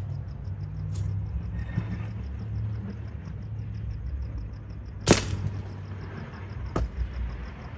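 A single sharp report of an air rifle shot about five seconds in, with a lighter click near seven seconds, over a steady low hum.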